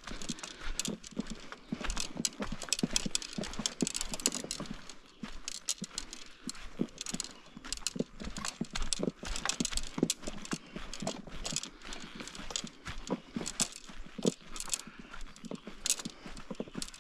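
Footsteps walking over a forest floor strewn with dead sticks and needles, with an irregular run of crunches and twig snaps underfoot.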